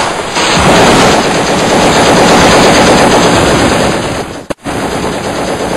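Rapid, continuous machine-gun fire, loud and dense. It breaks off abruptly for an instant about four and a half seconds in, then carries on more quietly.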